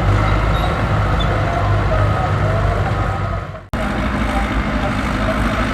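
Heavy diesel engine of earthmoving machinery running steadily, with a brief dropout about three and a half seconds in before the same engine sound resumes.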